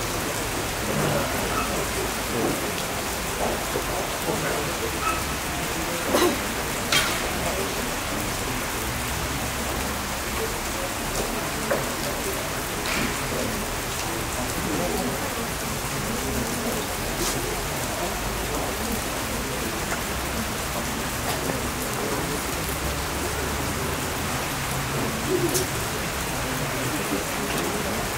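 Steady rain falling and pattering. A few sharp cracks stand out above it, two close together about six seconds in and another pair near the end.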